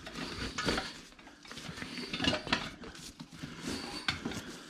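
Irregular metallic clinks and scraping rubs as the inner tube is pulled out from between a motorcycle tire and its spoked rim.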